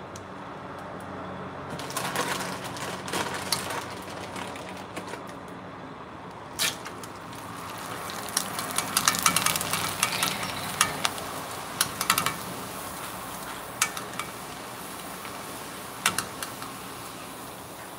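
Ring-shaped snack pellets deep-frying in hot oil inside a metal mesh strainer: sizzling and crackling, loudest in the middle stretch as the pellets puff. Sharp metallic clicks every second or two as the strainer knocks against the pan.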